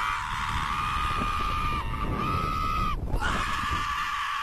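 Two women screaming on a slingshot ride: long, high-pitched screams, each held for a second or more, with brief breaks for breath, over a steady low rumble.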